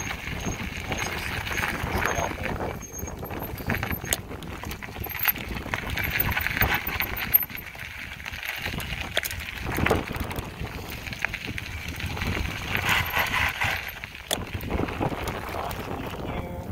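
Mountain bike rolling down a gravel trail, picked up by a camera on the handlebars: tyres crunching over gravel, with frequent small clicks and knocks as the bike rattles over bumps.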